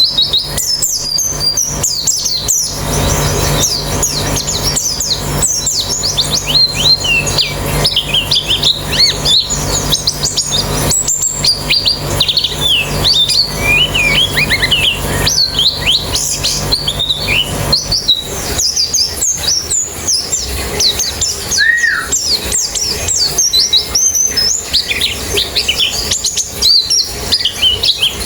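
A group of white-eyes (pleci) chirping and twittering, many quick high notes overlapping without a break. A low steady hum underneath stops about two-thirds of the way through.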